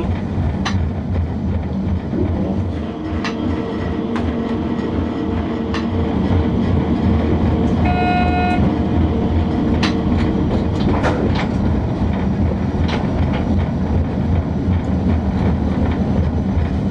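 Class E10 electric locomotive running along the line, heard from inside the cab: a steady low hum from the locomotive, wheels clicking now and then over rail joints and points, and a brief horn-like tone about eight seconds in.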